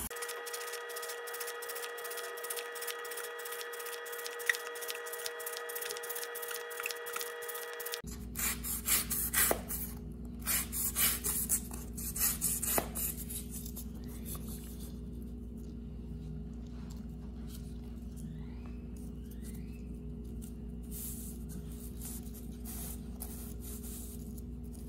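A folding pocket knife's blade slicing through cardboard in a series of short cutting strokes, the loudest cuts about eight to thirteen seconds in, as part of a cardboard edge-retention test.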